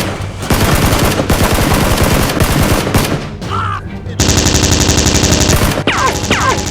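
Rapid automatic gunfire sound effects in long bursts, with a second, very even rapid-fire stretch starting about four seconds in.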